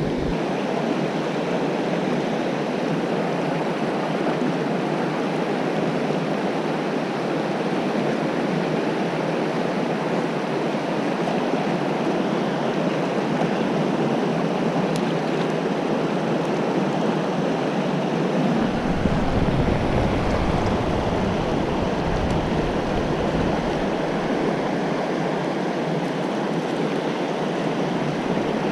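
Whitewater rapids of a mountain river rushing steadily. A low rumble joins in for a few seconds about two-thirds of the way through.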